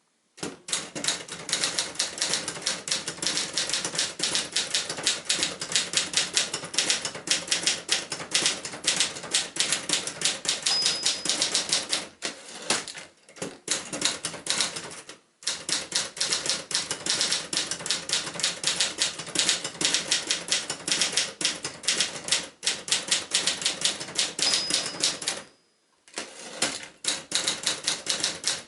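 1972 Adler J5 portable typewriter being typed on at a fast, steady pace, keystroke after keystroke, with a few short pauses. Twice there is a brief high ring.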